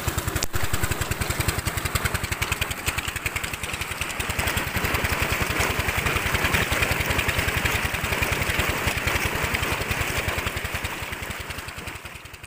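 A 16 hp diesel engine driving a tube well pump, running with a steady, rapid beat, over the rush of water gushing out of the outlet. The water grows louder about four seconds in, and everything fades out near the end.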